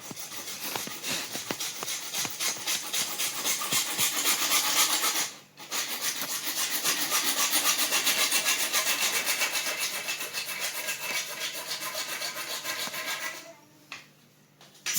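Hand saw cutting through a uPVC pipe in fast, even strokes, pausing briefly about five seconds in and stopping shortly before the end.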